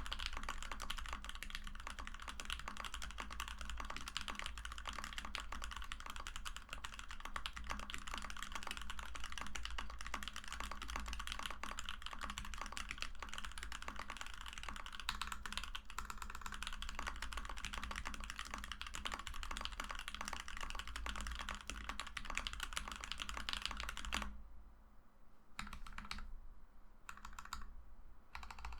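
Continuous fast typing on a custom mechanical keyboard: a frosted acrylic Alice-layout board with C3 Equalz Tangerine V2 linear switches lubed with Krytox 205g0, and PBT keycaps. A dense, unbroken run of keystrokes thins out near the end to a few scattered strokes with short pauses between them.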